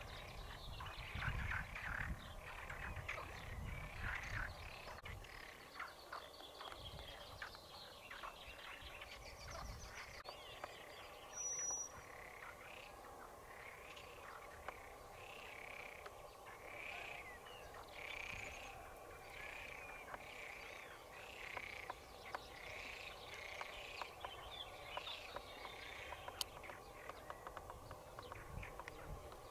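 Countryside ambience: small animal calls repeating about once a second, with a low rumble during the first few seconds.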